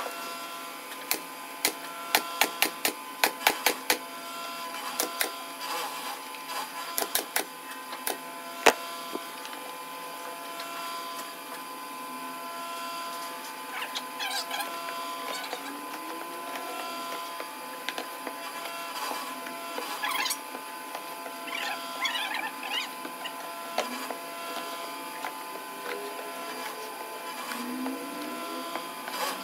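Steady machine hum with several fixed tones throughout, with clusters of sharp, loud clicks in the first nine seconds, then softer rustling and handling of foam sheets.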